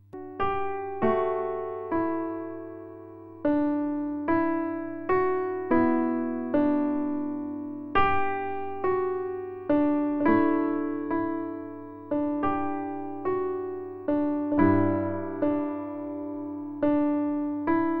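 Slow keyboard music in the manner of an electric piano: single notes and chords struck about one or two a second, each ringing out and fading.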